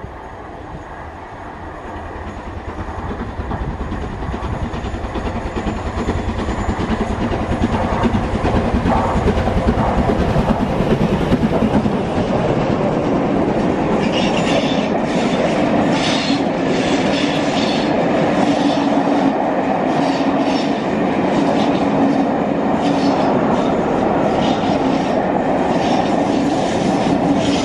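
Steam-hauled passenger train led by LMS Black 5 locomotive No. 44871 approaching and running past, growing louder over the first ten seconds. From about fourteen seconds on, the coaches roll by with a rumble and rapid clickety-clack of wheels over rail joints.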